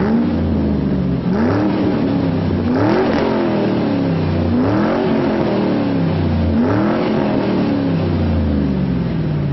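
A vehicle's engine running and being revved in about five short blips, the pitch rising and falling back to idle each time.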